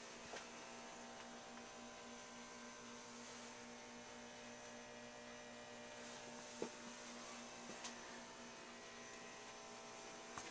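Faint steady mains hum from the switched-on, idle Wurlitzer 1400 jukebox, with two faint clicks in the latter half.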